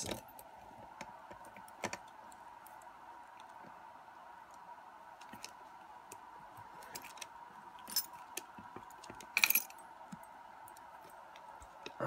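Scattered metallic clicks and key jingles as a lock cylinder is handled and clamped into a small vise hung with rings of keys, the loudest rattle a bit past halfway, over a faint steady hum.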